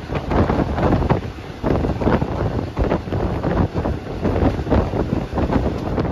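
Wind buffeting the microphone in uneven gusts over the rumbling running noise of a moving passenger train.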